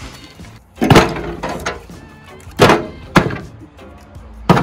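Four loud knocks of dry firewood sticks thrown into a rusty metal drum grill, the first two trailing off in a short metallic ring.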